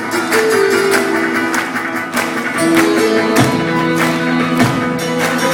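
Band music led by guitar, plucked and strummed over sustained held notes, with a steady beat.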